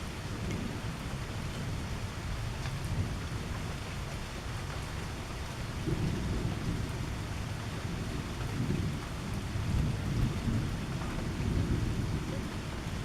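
Steady rain falling during a thunderstorm, with low rolling thunder rumbling in swells that grow stronger in the second half.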